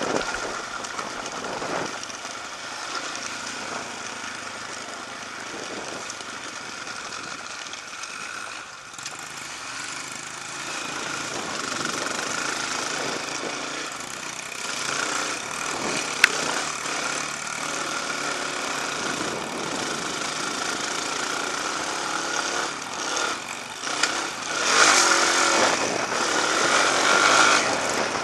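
Dirt bike engines running along a trail, the revs rising and falling, with a single sharp click about halfway through and louder revving near the end as the bikes cross a patch of mud.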